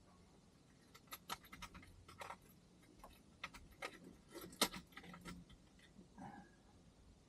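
Light, irregular metallic clicks and clinks of small hardware such as bolts and tools being handled, scattered over a few seconds with the sharpest clink about four and a half seconds in.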